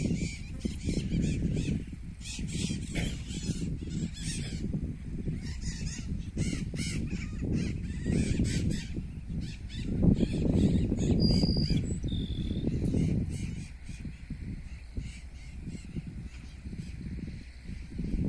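Grassland sparrow (tico-tico-do-campo) singing: runs of high, scratchy notes over the first half, then two short clear whistled notes about eleven seconds in, the second lower than the first. Strong wind rumble on the microphone throughout, loudest around the middle.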